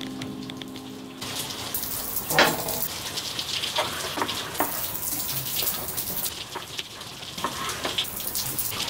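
A long knife slicing raw beef on a wooden cutting board: irregular cuts and taps of the blade against the board, the sharpest about two and a half seconds in, over a steady crackling hiss from open gas flames on lava rock.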